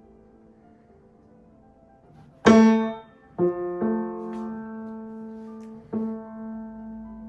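A single grand piano note, the A below middle C (about 220 Hz), struck four times while it is tuned with a tuning hammer against a tuning fork; each strike rings on and the first, about two and a half seconds in, is the loudest. A felt mute strip leaves only one string of the note sounding.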